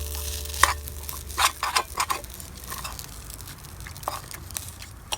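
Fried rice being stirred in a nitrided iron COCOpan frying pan: a utensil scrapes and clicks against the pan a handful of times in the first two seconds, and once more near the end.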